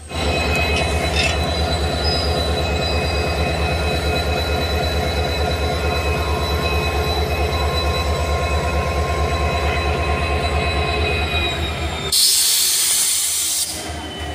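Indian Railways diesel locomotive running close by as it rolls slowly along the platform: a steady, fast low throb from its engine with thin steady whines above it. About twelve seconds in, a loud hiss that lasts about a second and a half.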